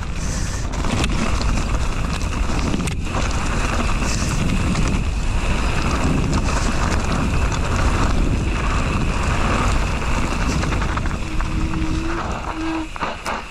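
Wind buffeting an action camera's microphone while a mountain bike rides down a dirt trail, its tyres rolling over the ground, with scattered short knocks from bumps.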